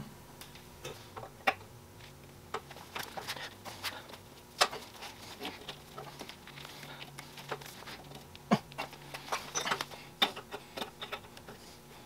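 Irregular light clicks, taps and rustles of a brass fitting and rubber air hose being handled and fitted by hand to an air compressor's pressure regulator, thickest near the end.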